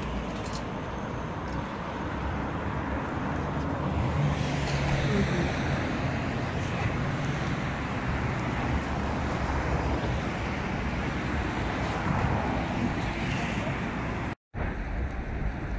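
Steady city road traffic, cars and trucks running, with a low engine hum standing out about four to six seconds in. The sound cuts out for a moment near the end.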